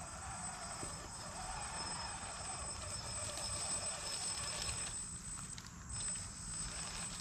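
1/8-scale 3D-printed RC Jeep CJ7 rock crawler driving over grass and dry leaves: its Flash Hobby 1100KV brushless motor and Hobbywing ESC give a steady high whine over drivetrain and tyre noise. The whine cuts out briefly a little before the sixth second, then resumes.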